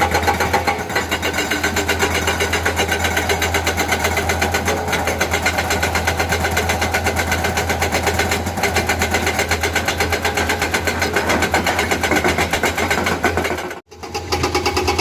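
Komatsu hydraulic excavator working, its engine and hydraulics running with a rapid, steady pulsing. The sound cuts out briefly near the end.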